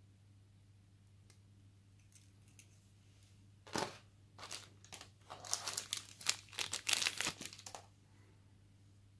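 Thin clear plastic bag crinkling as a mobile phone is slid out of it: about four seconds of dense crackling starting nearly four seconds in.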